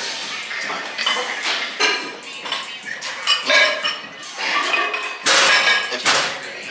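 Metal gym weights clinking and clanking, repeated knocks with a metallic ring, with two louder clatters near the end.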